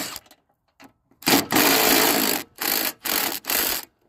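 Cordless power driver running in bursts, backing out the bolts that hold a riding mower's discharge chute: one run of about a second, then three short bursts.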